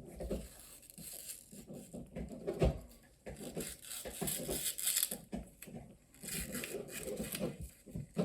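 Irregular light clicks, taps and rustling of hands and small tools working on an iPhone 11 during a screen replacement.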